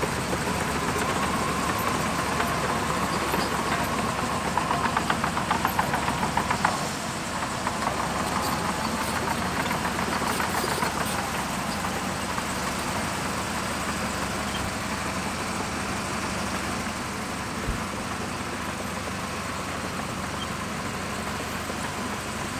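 Shantui DH17C2 bulldozer's diesel engine running steadily under work. It runs louder with a rapid pulsing for a few seconds, then eases back about seven seconds in.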